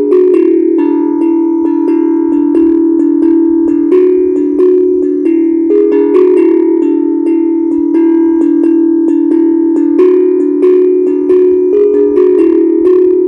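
HAPI steel tongue drum played by hand, a pentatonic melody of notes struck one after another, several a second, each ringing on into the next.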